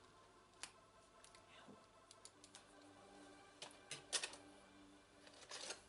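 Faint, scattered small clicks from handling the small parts of a cable connector, with a denser cluster of clicks about four seconds in.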